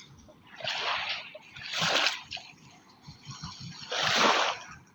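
River Sutlej water splashing in small waves at the bank, three washes that swell and fade a second or two apart.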